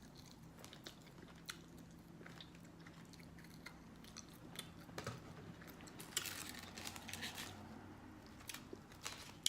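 A person chewing and biting food, with soft crunches and wet mouth clicks. The crunching grows denser and louder about six to seven and a half seconds in.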